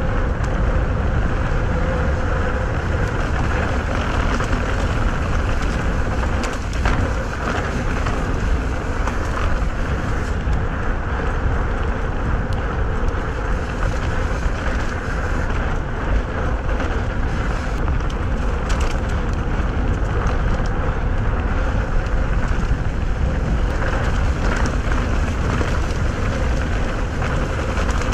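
Wind rushing over a helmet-mounted camera's microphone with a deep, steady buffeting, mixed with mountain bike tyres rumbling over dirt singletrack on a fast descent.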